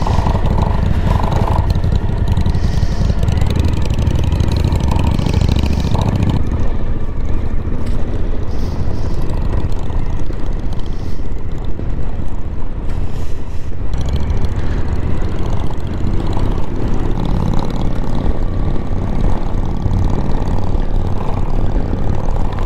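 Suzuki V-Strom 1050XT V-twin motorcycle riding on a rough dirt track: the engine runs steadily under heavy low wind rush on the camera microphone.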